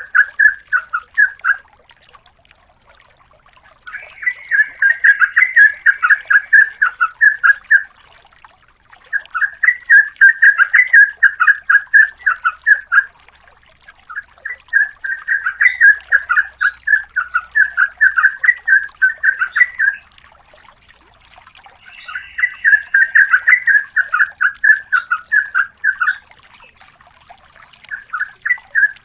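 Yellow-vented bulbul (trucukan) singing long runs of rapid chattering notes, about five bouts of a few seconds each with short pauses between them.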